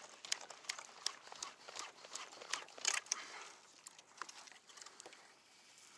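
Kayak paddle strokes: a quick run of small, sharp splashes and drips as the blade dips into the sea, dense at first and thinning out after about three seconds.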